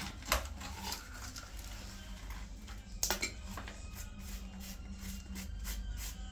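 Scattered light clicks and clinks of small hard objects being handled, with two sharper knocks, one just after the start and one about three seconds in, over a low steady hum.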